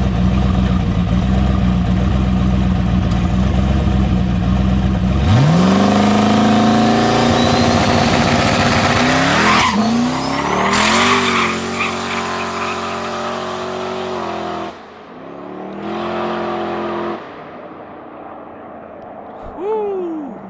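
Turbocharged 4.8 L LS-swapped Fox-body Mustang idling, then launching about five seconds in and accelerating hard, the engine note climbing through a couple of gear changes as it pulls away and fades into the distance.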